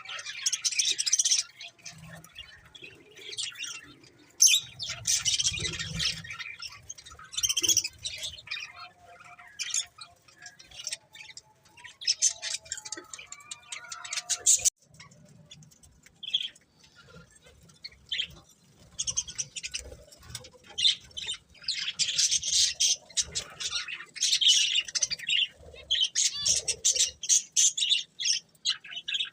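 Budgerigars chirping and chattering in busy high-pitched bursts, with a quieter, sparser stretch in the middle.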